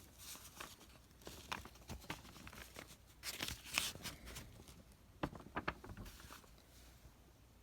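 Faint handling noise: scattered clicks, taps and rustling, with a cluster of louder rustles about three seconds in and a few sharp clicks a little after five seconds.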